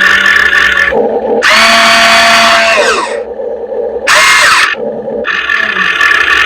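RC hydraulic excavator's electric pump and drive motors whining in a series of short runs as the controls are worked, each starting and stopping abruptly, a couple dropping in pitch as they wind down.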